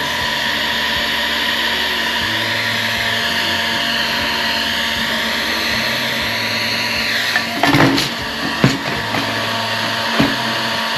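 Electric heat gun running with a steady fan rush as it warms the cut flaps of a PVC T-fitting to soften them for bending. A few short knocks come about three-quarters of the way through and again near the end.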